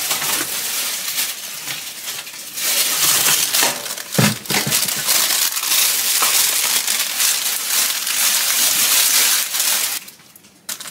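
Plastic packaging crinkling and rustling continuously as it is pulled off a new toaster and its cord, stopping shortly before the end.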